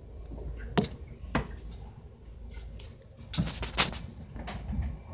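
Steady low rumble of a standing commuter train coach, broken by several sharp clicks and knocks: one about a second in, another half a second later, and two close together past the three-second mark.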